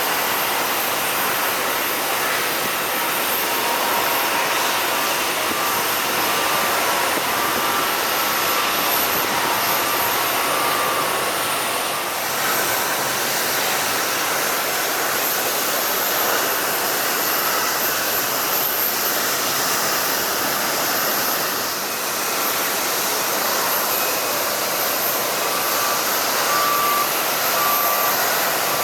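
Jet airliner engines running steadily on the apron, a continuous roar. Twice, a series of short electronic beeps sounds at even intervals, like a ground vehicle's reversing alarm.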